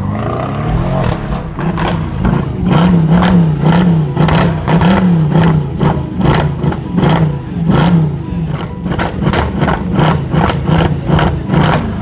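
Mercedes-Benz C-Class coupé engine revved hard through quad exhaust tips while stationary, the pitch rising at first and then swinging up and down in repeated throttle blips, with frequent sharp pops from the exhaust.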